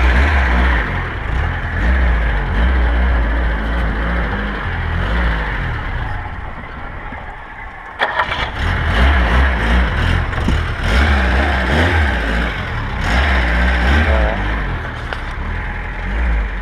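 A VAZ 2106's four-cylinder carburettor engine running under throttle as the car creeps along a rough dirt track, heard from inside the cabin, with a sudden jump in loudness about eight seconds in. The engine has no idle and keeps stalling when off the throttle.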